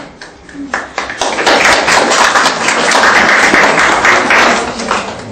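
Audience applauding, starting about a second in, building to a dense patter and dying away near the end.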